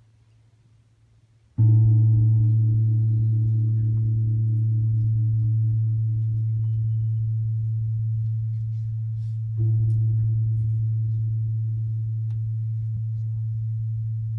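A deep ringing tone, struck twice about eight seconds apart; each strike starts suddenly and rings on, fading slowly.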